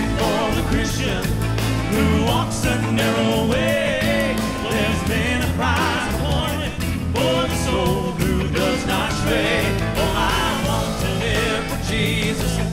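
Southern gospel male quartet singing live with full band accompaniment and a steady drum beat.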